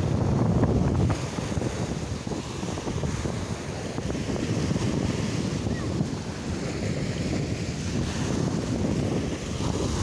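Small surf waves breaking and washing up the sand, with wind buffeting the microphone. The low rush is strongest in the first second.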